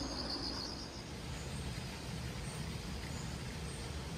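Rapid, pulsing, high-pitched insect chirping that stops about a second in, over a steady low rumble.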